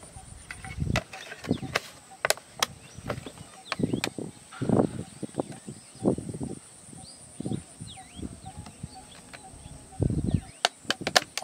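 Close handling sounds of a plastic bag and containers over a steel bowl while bait is prepared: irregular sharp clicks, soft knocks and rustling. A steady high insect trill runs underneath, with a few faint bird chirps.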